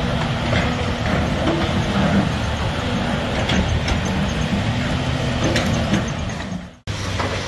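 Diesel engines of a Cat tracked excavator and a dump truck running steadily, with a few metallic clanks. The sound cuts out for an instant near the end.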